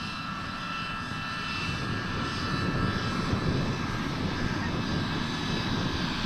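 Yak-55 aerobatic plane's nine-cylinder radial engine and propeller running steadily as the plane passes low along the runway, growing gradually louder.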